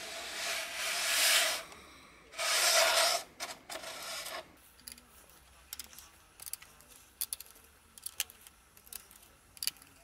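Plastic scraping and rasping as the side piece of a Keychron K4 V2 keyboard case is pulled off, in two loud strokes, the first one building up. After it come light scattered clicks and ticks of a screwdriver on the small screws of the keyboard's switch plate.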